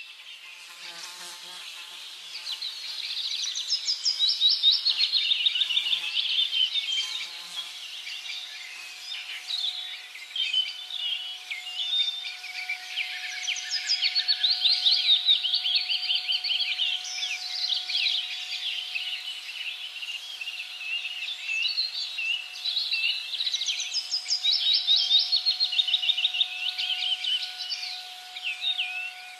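Outdoor ambience of many small birds chirping and singing in quick, overlapping trills. A faint steady tone comes in about eight seconds in and holds underneath.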